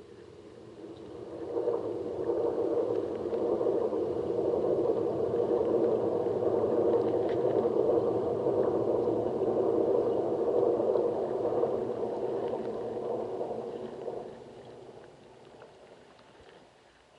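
A motor's steady hum heard underwater, swelling up about a second in, holding, then fading away after about fourteen seconds, as if passing by.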